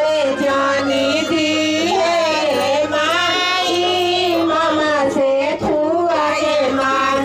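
Music: a woman singing a song with long held, ornamented notes, continuous and at a steady level.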